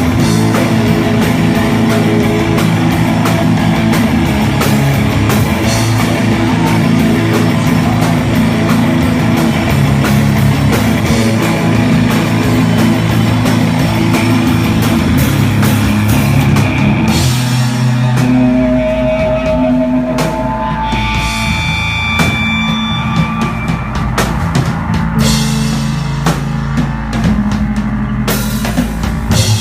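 Live rock band playing loud, with distorted guitars, bass and a drum kit with cymbals. A little past halfway the full band drops back, leaving a low drone, a few held feedback-like guitar tones and scattered drum hits.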